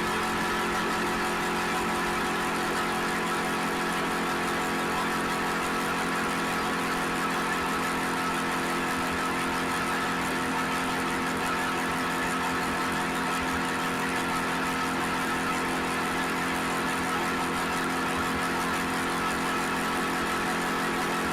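Suzuki SV650X motorcycle's 645 cc V-twin engine running at a steady, unchanging speed, with no revving.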